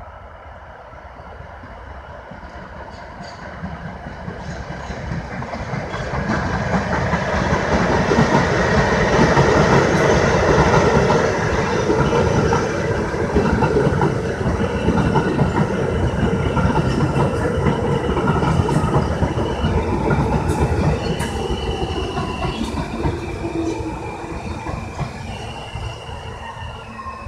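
Alstom R160 subway train approaching and passing close by, its wheels clattering over the rails and squealing, growing loud and then easing off as it slows into the station. In the later part a steady electric whine from the propulsion steps up and down in pitch as it brakes.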